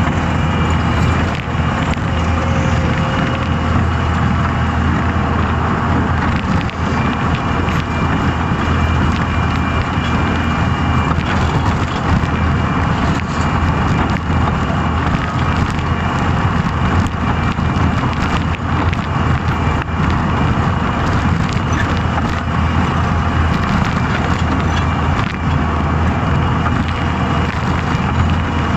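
Skid steer loader's engine running steadily under work, a loud continuous drone with a faint high whine and scattered small clatters over it.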